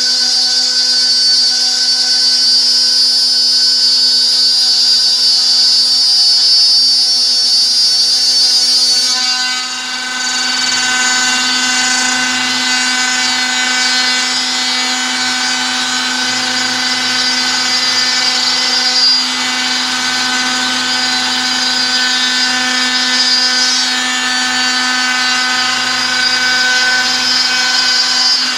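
Homemade CNC machine running, its motors making a loud, steady whine. The tone changes about nine seconds in, and there is a short click a little past halfway.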